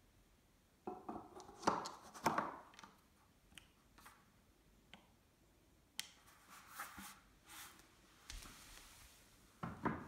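Plastic clicks and scrapes of a hand-held LED globe lamp as its white base plate is worked against the frosted plastic sphere, irregular and short. Near the end comes a brief louder knock and scrape as the globe is set down on a tile floor.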